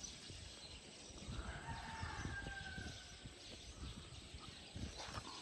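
A rooster crowing once: one drawn-out call of about two seconds, starting about a second in, over a low rumble.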